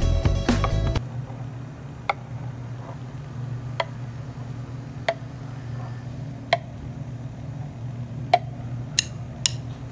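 Guitar music cuts off about a second in, leaving a steady low hum with scattered light ticks every second or two.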